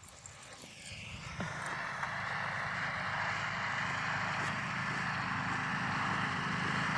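An engine running steadily, growing louder from about a second and a half in.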